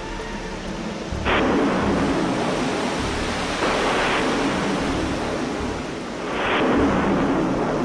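Rushing, rumbling noise from the onboard camera of a Space Shuttle solid rocket booster falling toward the ocean, swelling suddenly three times.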